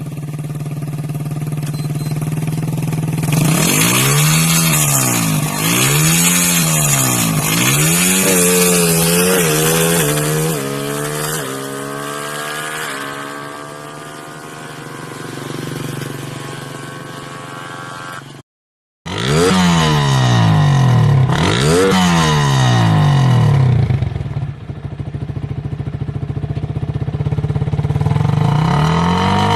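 Drag-racing motorcycle engine being free-revved while it is tuned: repeated throttle blips, each rising and falling about a second apart, then held with the revs climbing slowly. After an abrupt cut, the quick blips start again.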